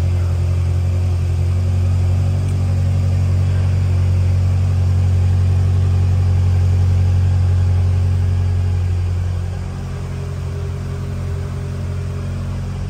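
BMW S63TU twin-turbo V8 idling steadily, heard from inside the cabin, just after its first start following the radiator and auxiliary water pump replacement. It gets a little quieter about nine and a half seconds in.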